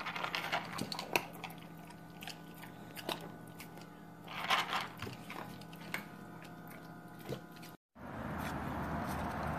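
Boxer puppy eating dry food from a bowl: irregular crunches and clicks of chewing. Near the end it gives way to a steady outdoor rushing noise.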